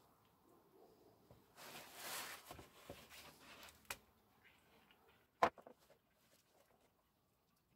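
Handling noises from work at a car's oil sump drain plug over a metal drain pan: a rushing, rustling noise for about two seconds, a small click, then a single sharp metallic clink about five and a half seconds in.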